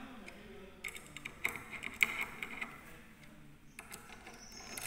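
Hand screwdriver tightening the screws of a door-lock back plate: scattered small clicks and ticks of the bit turning in the screw heads, with one sharper click about two seconds in. A steady high whine sets in near the end.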